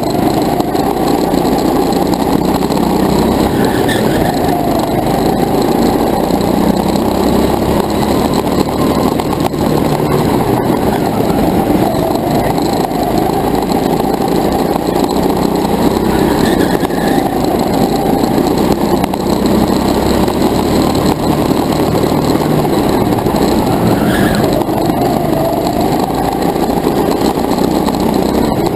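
Go-kart engine running hard through laps of an indoor track, its pitch rising on the straights and dropping into the corners, with rattle from the kart-mounted camera.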